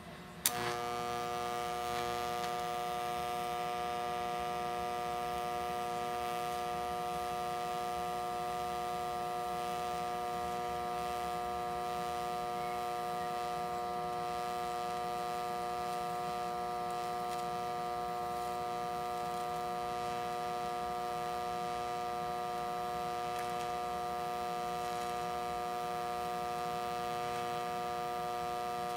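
Hobart TIG welder arc struck about half a second in with a sharp click, then a steady electrical hum and buzz as the arc runs unbroken through the weld.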